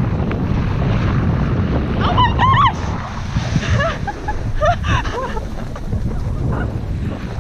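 Wind buffeting the microphone of a camera worn by a skier running downhill, a loud steady rumble. Short high-pitched wavering vocal squeals come about two seconds in and again around four to five seconds in.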